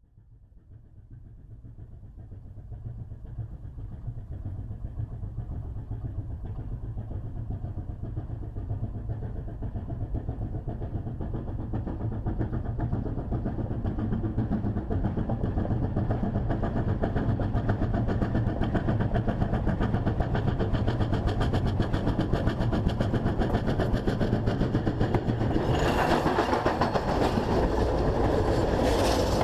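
JS class 2-8-2 steam locomotive working hard up a gradient with a loaded coal train of about 1500 tonnes. Its chuffing grows steadily louder as it approaches. About 26 s in it becomes suddenly loud as the engine passes directly over the track-level microphone, with wheel and rail noise added.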